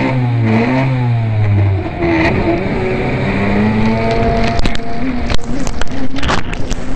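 Race jetski engine heard from an onboard camera. Its pitch rises and falls as the throttle is worked, over a steady rush of water. In the last couple of seconds sharp cracks and buffeting come as spray hits the camera.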